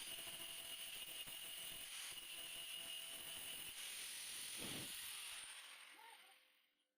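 Stick (arc) welding arc crackling and hissing steadily as the electrode burns, fading away over the last second and a half.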